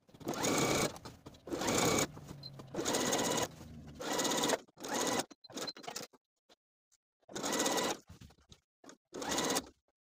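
Domestic sewing machine running in short stop-start bursts of about half a second to a second, with one longer pause a little past the middle. It is topstitching with a straight stitch through an elasticated waistband of heavy linen-blend fabric.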